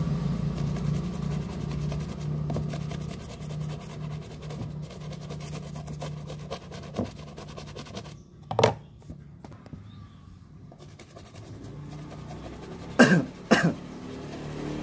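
Small brush scrubbing the soapy toe of a white football boot in quick scratchy strokes. A few short throat sounds cut in, two of them close together near the end.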